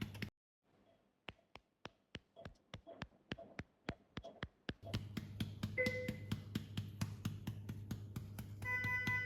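A quick run of soft taps, several a second, over a low steady hum, with a beeping electronic tone sounding about six seconds in and again near the end.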